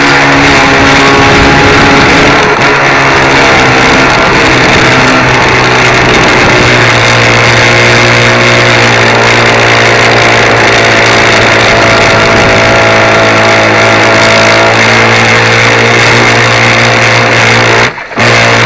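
On-board audio of a radio-controlled speedboat under way: its brushless electric motor runs with the rush of water against the hull, very loud and overloading the small camera's microphone. It breaks off briefly near the end.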